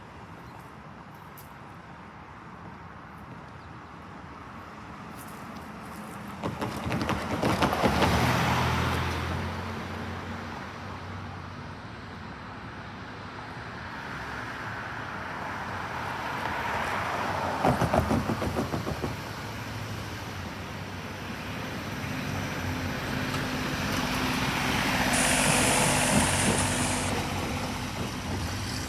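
Vehicles passing by one after another: three separate pass-bys, each swelling and fading over several seconds, about 8, 18 and 26 seconds in.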